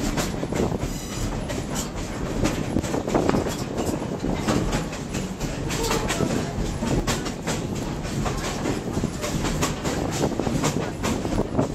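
Open-air passenger car of a heritage train rolling along the track: a steady rumble with frequent clacks and rattles from the wheels and car body.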